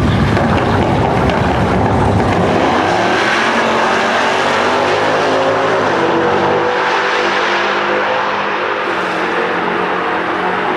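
Two drag cars, one a Dodge Challenger, launching off the start line and accelerating hard down the strip. A heavy rumble at launch gives way to engine notes that climb in pitch through the gears, easing slightly as the cars pull away.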